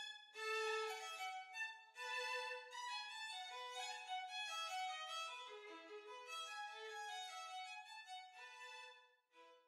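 Background music: a violin playing a melody.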